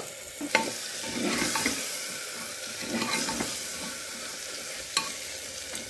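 Tomato and onion masala sizzling in oil in an aluminium pressure cooker as the tomatoes cook down, stirred with a spatula, with a few sharp clicks of the spatula on the pot.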